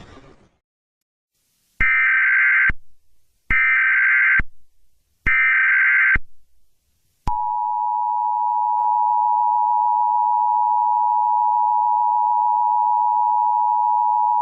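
Emergency Alert System broadcast tones: three short, buzzy SAME header data bursts, each just under a second long and about a second apart. They are followed, about seven seconds in, by the steady two-tone EAS attention signal. These are the tones that introduce an emergency alert message.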